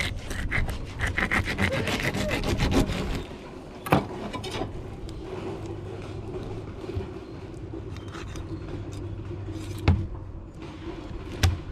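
A fillet knife cutting a fish on a cleaning table. About three seconds of rapid sawing strokes, then quieter slicing, with three sharp knocks: one about four seconds in, one near ten seconds and one near the end.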